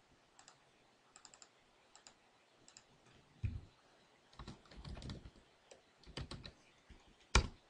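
A few light clicks, then typing on a computer keyboard: irregular keystrokes, with one loud sharp keystroke near the end.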